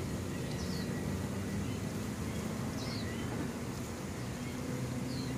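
A low, steady motor drone, with a bird's short, high, falling chirps repeating every second or two over it.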